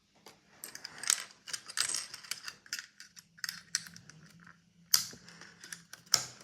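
Plastic snap-circuit pieces being handled and pressed onto the kit's base grid: a run of light clicks and rattles, with two sharper snaps about five and six seconds in.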